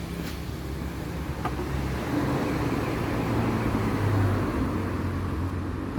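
Toshiba washing machine starting its cycle just after Start is pressed: a steady mechanical hum that grows a little louder about two seconds in, with a couple of faint clicks near the start. It is running because the new door switch has cleared the E23 error.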